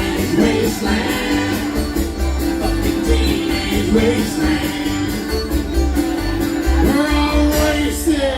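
Bluegrass-style string band playing an instrumental passage: picked banjo and guitar over a steady bass pulse, with a long held note underneath and sliding notes near the end.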